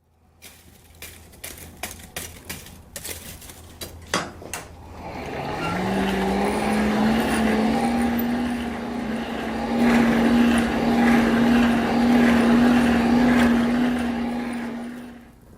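A few knocks and clatter, then an electric motor spins up with a rising whine and runs steadily over loud rushing air for about ten seconds, dying away near the end.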